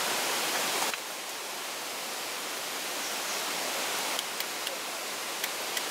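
Steady rushing of a mountain stream. In the last couple of seconds a few sharp light clicks come as a small glass beer bottle is handled.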